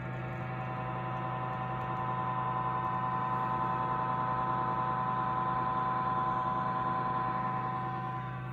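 Audew electric cigar humidor's cooling unit running with a loud, steady hum and a ringing whine on top, swelling a little in the middle. The noise is an abnormal one that the unit has developed after a couple of months of use.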